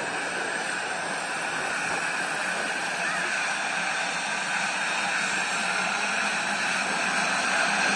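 Eurocopter EC145 helicopter's twin turboshaft engines running with a steady whine as the main rotor turns slowly, getting gradually louder as the rotor spins up.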